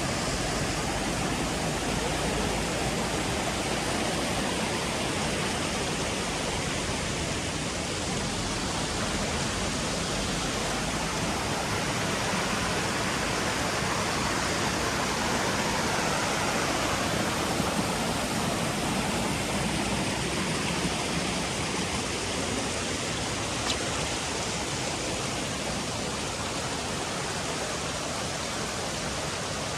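Rushing water of the Oirase mountain stream, a steady, even rush.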